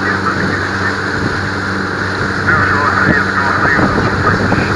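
Outboard motor of a small boat running steadily under way, with a low hum, while the wake rushes and splashes behind the stern; the water rush grows a little louder about halfway through.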